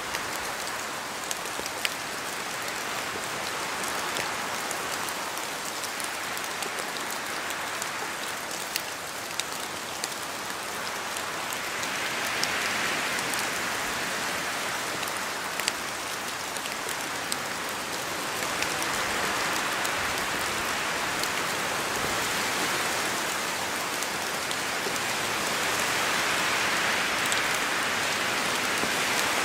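Steady rain falling through forest trees, a dense hiss with many separate drops ticking on leaves. The hiss swells and eases a few times as gusts of wind move through the trees.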